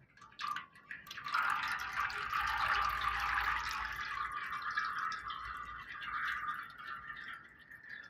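Used oil draining from the truck in thin streams into a tub half full of oil: a steady splashing trickle that sets in about a second in.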